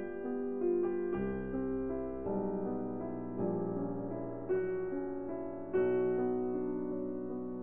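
Background piano music, a slow melody with chords changing about once a second.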